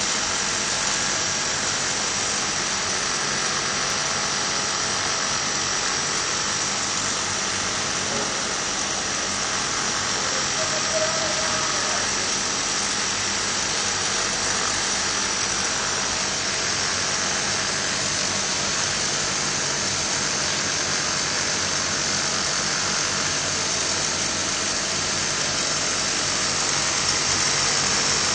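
Carpet overlock machine running steadily, its Emery sewing head stitching yarn over the carpet edge: a constant mechanical whir with a strong high hiss that holds at one level.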